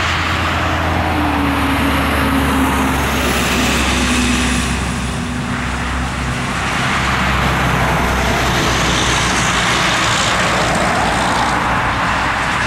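Steady roar and hiss of vehicle engine noise, with a low drone that falls slightly in pitch over the first three seconds.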